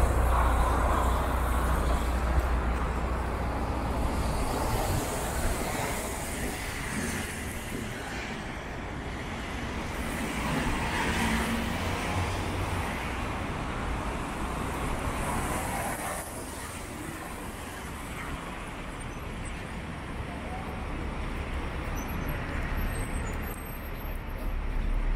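City street traffic passing on a busy avenue, with a heavy vehicle's low rumble loudest in the first few seconds and then fading, and a background murmur of passers-by.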